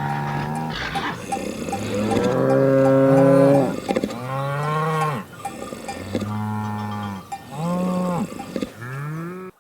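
American bison bellowing: a run of about six long, low calls.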